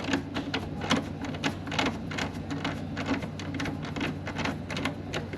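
Irregular light clicks and taps, a few a second, from hand tools and parts being handled on the back of a refrigerator, over a steady low hum.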